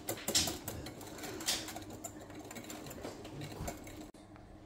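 Wire whisk beating double cream by hand in a bowl: quick rhythmic scraping and ticking strokes, strongest in the first second and a half and fading to faint room noise later.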